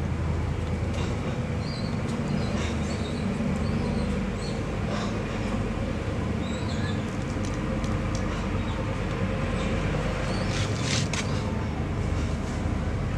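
A steady low mechanical drone, like a running engine, with a few faint high chirps and a cluster of sharp clicks about eleven seconds in.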